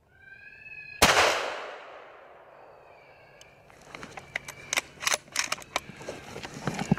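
A single rifle shot about a second in, sharp and loud with a long echoing decay, just after a brief pitched call. From about halfway on, a scatter of sharp clicks and taps.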